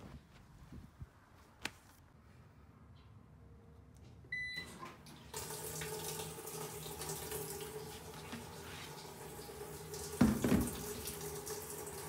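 Speed Queen commercial top-load washer beeping once as its cycle starts, then water rushing into the tub, a steady rush with a low hum under it. About ten seconds in there is one loud knock.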